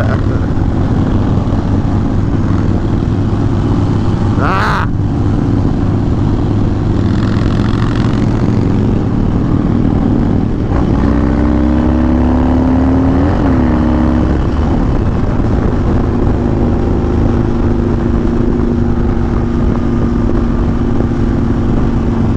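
Harley-Davidson Dyna V-twin running steadily at highway cruising speed, heard close from an on-bike mic with constant wind rush. Its engine note shifts a little past halfway, and a brief sharp noise cuts through about four and a half seconds in.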